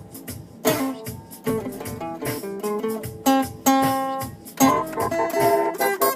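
A guitar playing a melody of plucked notes and strummed chords that ring and fade, a new chord struck every half second to a second.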